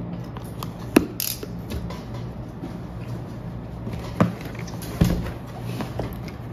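Cardboard box being unpacked: a utility knife cutting the seal, then the box sliding out of its outer cardboard sleeve and being set down. There is a sharp tap about a second in, followed by a brief scrape, and two knocks of cardboard a few seconds later.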